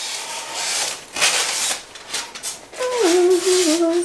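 Cardboard box and foam packaging rustling and scraping in bursts as a foam-packed vase is pulled out of the box. Near the end a woman's voice holds a falling note for about a second.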